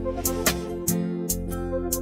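Intro background music: held instrumental notes with a regular beat.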